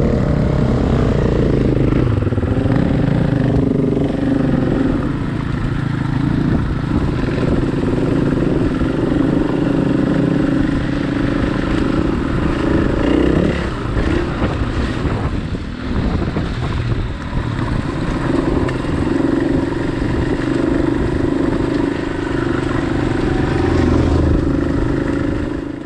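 Motorcycle engine running under way on a dirt trail, its pitch rising and falling with the throttle over a steady low rumble.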